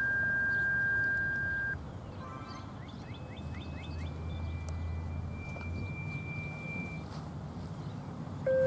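Electronic beep tones, steady pure pitches stepping from one to the next: a high tone held for about two seconds, a quick run of falling tones, then a higher tone held for about four seconds. Near the end a louder pair of low and high tones sounds together.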